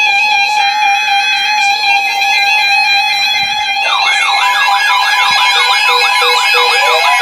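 Several weather radios sounding their warning alarms at once, set off by a severe thunderstorm warning. A steady, shrill electronic alert tone runs throughout; about four seconds in, a fast wavering siren-like alarm joins, followed by a beeping tone.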